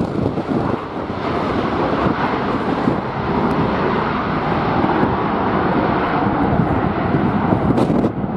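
Jet airliner engine noise from a passing plane, a steady rushing sound that swells about a second in and holds, with strong wind buffeting the microphone throughout.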